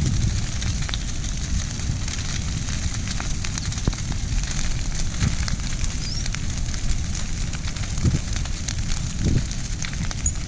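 Brush fire of piled tree limbs crackling, with many small sharp pops over a steady low rumble.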